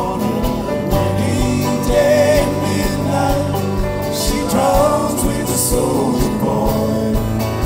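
Irish folk band playing live, with acoustic guitar, banjo, bodhrán and keyboard over a steady beat, and voices singing.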